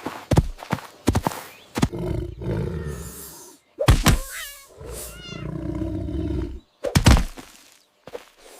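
Cartoon sound effects: a run of sharp thumps and two long low growling roars, with a short squeaky chirping about four seconds in.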